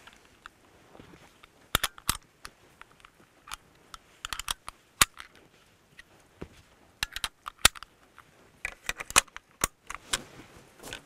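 Sharp metallic clicks and snaps coming irregularly in small clusters as cartridges are pressed one by one into a bolt-action rifle's detachable metal box magazine.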